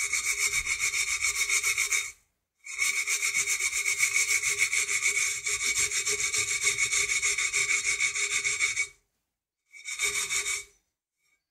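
Steel-wool scouring pad scrubbing rapidly back and forth over the burnt, ridged underside of a frying pan, loosening burnt-on residue with shavings of bar soap. The scraping pauses briefly about two seconds in, again near nine seconds, then a short last burst ends near the end.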